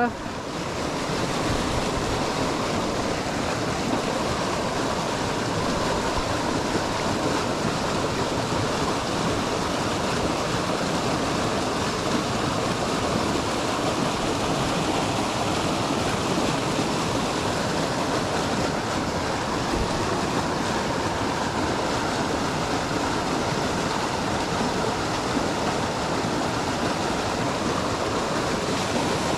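Steady rush and splash of a small creek's riffle pouring into a pool, close by.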